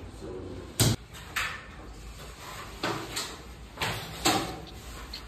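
PVC ceiling panel being slid and knocked into place on its frame: about six sharp plastic clacks and knocks at irregular spacing, the loudest about a second in and again near the end.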